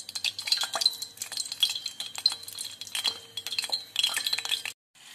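Floured chicken livers frying in a pot of hot oil: a dense, irregular crackling and spitting. It cuts off abruptly near the end.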